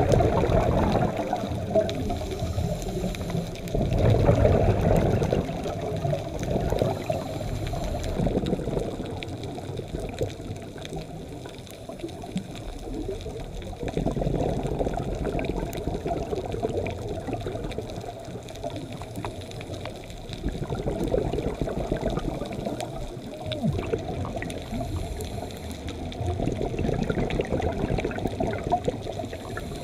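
A scuba diver's exhaled bubbles, recorded underwater, bubbling up in low, muffled swells every few seconds, with faint crackling clicks throughout.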